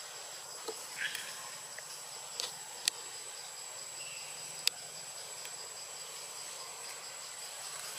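Steady, high-pitched insect drone from the forest, with two sharp clicks in the middle.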